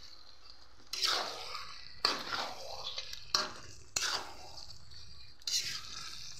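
Steel ladle stirring chicken pieces into masala in a metal kadai: about six sudden scraping strokes against the pan, each fading quickly. The chicken has just gone into the masala.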